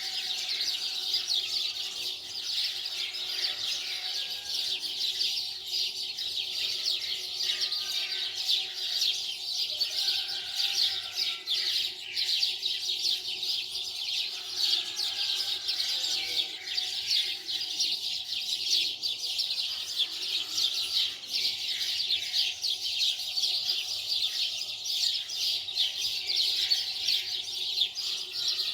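Dense, continuous chorus of many small birds chirping rapidly and high-pitched, with no pauses.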